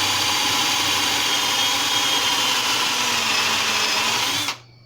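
Electric drill spinning a homemade cast-lead roll crimper down onto the mouth of a 12-gauge shotshell to roll-crimp it. It runs steadily and cuts off suddenly near the end.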